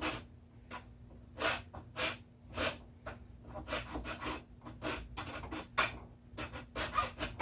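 Repeated hand strokes of a small half-round file rasping against a part, about two strokes a second, coming quicker near the end.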